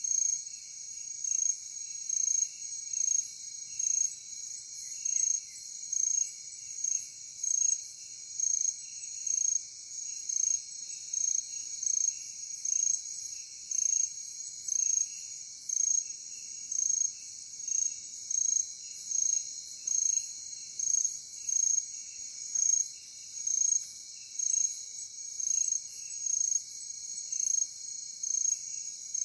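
A chorus of night insects, crickets among them, trilling steadily. One loud high chirp repeats a little more than once a second over a fainter, lower pulsing trill.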